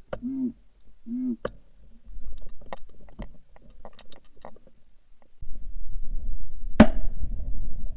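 Geese calling twice in the first second and a half, then a few light clicks and a low rushing noise, ending in a single loud shotgun shot about seven seconds in.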